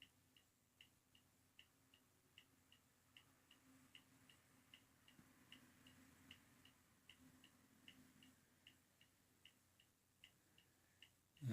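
Near silence with a faint ticking clock: steady tick-tock, about two and a half ticks a second, alternating stronger and weaker.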